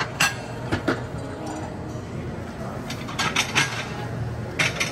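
Short, sharp clinks of dishes and cutlery in a few small clusters, over a steady low murmur of a dining room.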